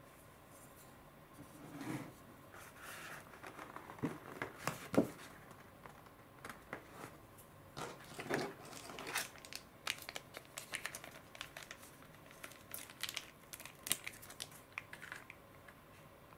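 Foil sauce pouch crinkling and crackling as it is handled and torn open, a long run of sharp crackles with a few louder knocks about four to five seconds in.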